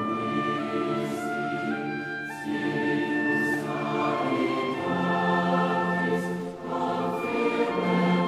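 Sacred choral music: a choir singing slow, sustained chords with orchestral accompaniment.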